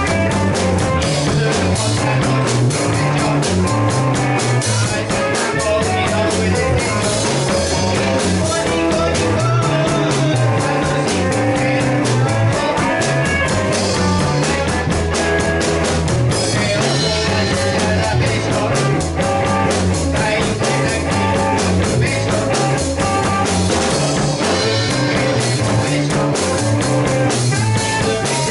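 Rock band playing live: electric guitars over a drum kit and a moving bass line, with a woman singing.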